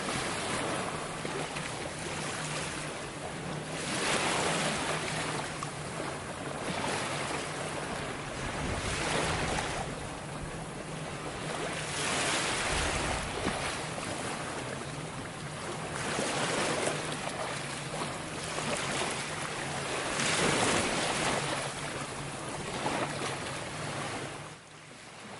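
Small waves breaking and washing up onto a sandy beach, the surf swelling and easing every few seconds.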